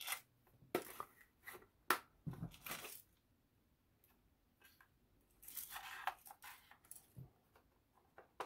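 Adhesive tape being slit with a pointed tool and peeled off a clear plastic parts box: a series of short tearing sounds and clicks, with a longer tear about five and a half seconds in.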